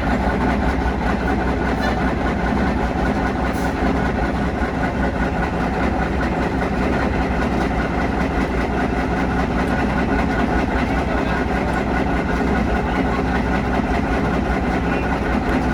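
Steady, loud drone of a heavy engine running, unchanging throughout.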